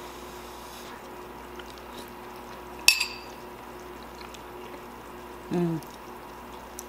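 A metal spoon clinks once, sharply, against a bowl about three seconds in, and a short hummed 'mmm' of someone tasting food follows near the end. A faint steady hum sits under it.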